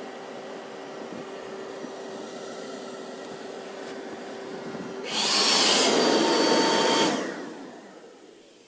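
Electric fan of a Black Diamond JetForce avalanche airbag running with a steady hum, then surging much louder with a whine about five seconds in for two seconds before winding down.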